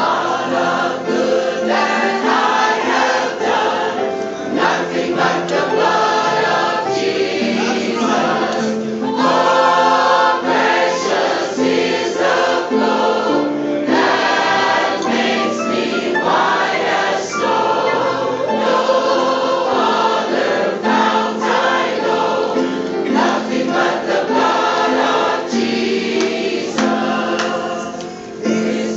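A large mixed choir singing a gospel song with accompaniment, many voices in harmony.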